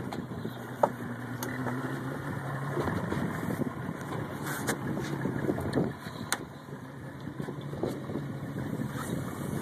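Boat engine running steadily at low speed, a low even hum. A sharp knock about a second in and scattered clicks come from the camera being handled.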